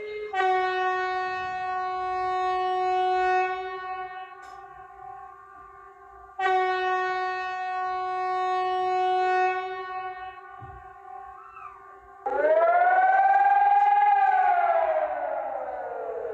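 Emergency alert alarms. A Swedish alert tone, a steady pitched tone, sounds twice for about three and a half seconds each, fading away each time. About twelve seconds in, a German civil-defence siren begins to wail, rising and then falling in pitch.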